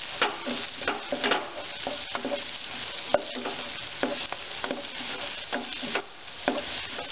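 Fenugreek leaves and onions sizzling as they fry in oil and butter in a pan, being stirred, with short scraping clicks about twice a second. The leaves are frying off their raw smell and bitterness.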